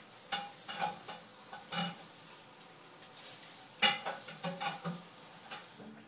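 Budgerigar nibbling a sprig of grass: irregular crackly rustles and snaps of the stems, the loudest about four seconds in.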